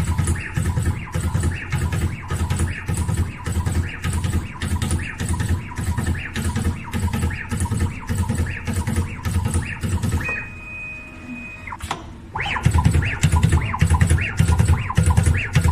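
Automatic battery pack spot welding machine working down a row of cells: a steady mechanical cycle about three to four times a second, each a short rising whir of the gantry moving to the next cell and a low knock of the weld head. About ten seconds in, the cycle stops for about two seconds, leaving a steady high tone, then starts again.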